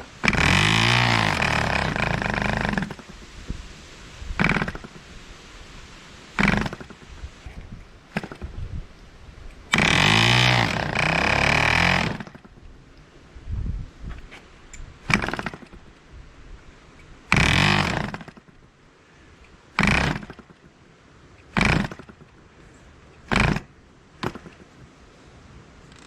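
1947 Drone diesel model airplane engine firing in fits on its starting attempts. It runs for about two and a half seconds at the start and again about ten seconds in, then dies each time. Between runs it catches for only a moment, about eight times.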